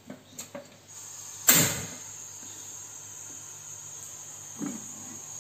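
A gas stove burner being lit under a wok: a few light clicks, then a sudden loud whoosh about a second and a half in as the gas catches, followed by a steady high hiss from the burning burner.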